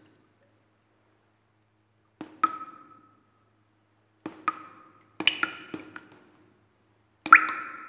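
Sharp knocks, one or two at a time with several seconds between the groups, each followed by a short ringing tone. The first comes about two seconds in and the loudest near the end.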